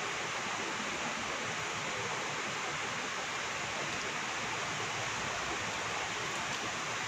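Heavy monsoon rain falling steadily, an even hiss with no thunder or other breaks.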